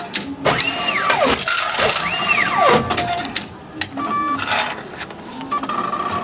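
Japanese ticket vending machine printing and dispensing a ticket: clicking and whirring mechanism. It is joined by two whistle-like tones, each rising briefly and then sliding steeply down, about a second and a half apart.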